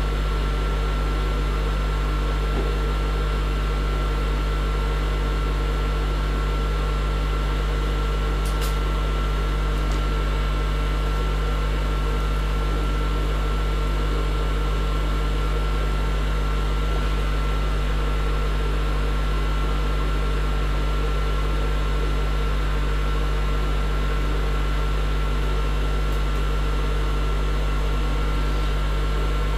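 Steady machine hum with a deep low rumble and a thin, faint whine above it.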